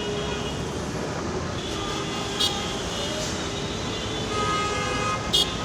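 Busy city road traffic: a steady rumble of engines and tyres, with a vehicle horn sounding for about a second near the end and a couple of short, sharp high-pitched beeps.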